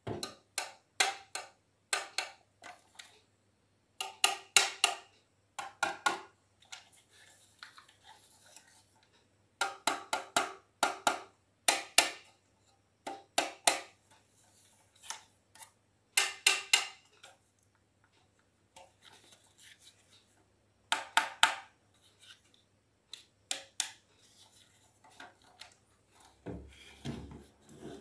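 Yigong YG258-E toy remote-control dump truck handled by hand, its dump bed and parts clicking and clattering in short bursts of a few sharp ticks with quiet gaps between. A low steady hum begins near the end.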